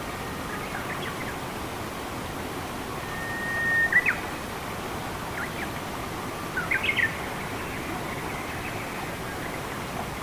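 Birds calling over a steady rush of running water: a held whistle about three seconds in that ends in a couple of quick notes, then a few short chirps shortly after the middle.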